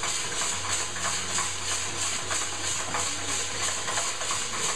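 Small drum coffee roaster running mid-roast: a steady hiss with a fast, even pulse from the rotating drum and tumbling beans, over a low hum.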